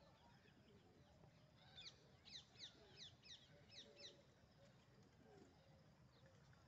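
Faint bird sounds: a quick run of about eight high, falling chirps from a small bird, roughly four a second, starting about two seconds in, with faint low cooing from the feral rock pigeons.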